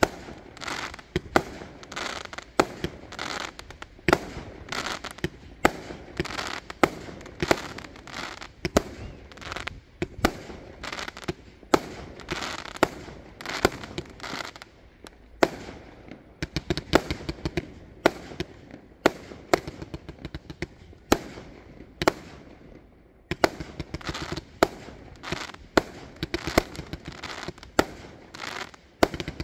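Fireworks display: aerial shells bursting in quick succession, about one or two sharp bangs a second, with crackling between them and a brief lull about three-quarters of the way through.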